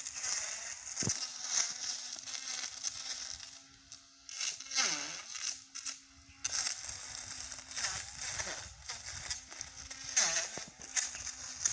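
Battery-powered 88-volt brush cutter running with a steady electric motor hum while it cuts grass, with a crackling hiss from the cut vegetation. Twice the motor's pitch drops sharply and comes back up as it bogs down in thicker grass.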